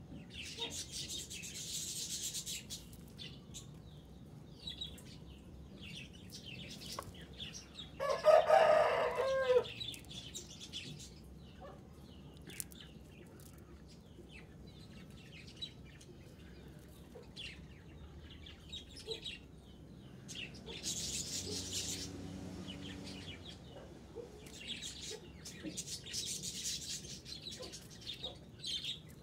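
Chickens: a rooster crows once, loud and wavering, about eight seconds in and lasting about two seconds, with high chirping at other times.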